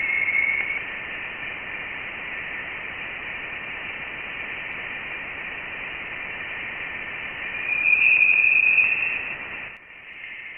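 Voyager 1 plasma-wave data from interstellar space converted to audio: a steady static-like hiss with a thin high whine on top. It is the sound of electromagnetic waves oscillating in the interstellar plasma and of charged particles hitting the spacecraft's instruments. It swells louder about eight seconds in and drops out near the end.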